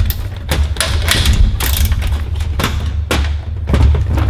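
Irregular knocks and clanks of tools and parts being handled on a steel workbench while a Predator 212 engine is taken apart, over a steady deep rumble.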